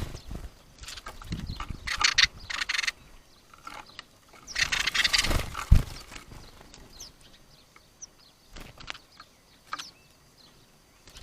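Sparrows squabbling: several bursts of rapid rattling scuffle lasting about a second each, with short chirps scattered between them, and one sharp knock a little past the middle.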